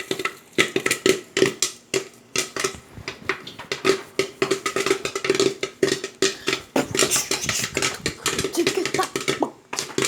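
Popcorn kernels popping in a covered pot, a dense, irregular run of sharp pops with the lid and pot rattling.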